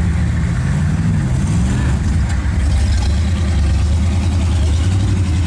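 Rock buggy's 7.3-litre diesel engine running hard under throttle as it climbs a rock ledge, its pitch rising and dropping back about a second in.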